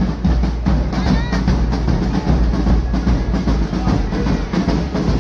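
Loud drumming with music: dense, driving drum beats over a heavy low end.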